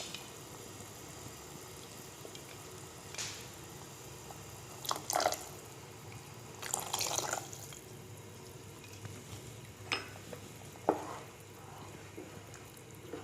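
Cornflour-and-water slurry poured into a pot of boiling chicken soup and stirred in. The liquid sounds are faint, with a few short knocks and scrapes.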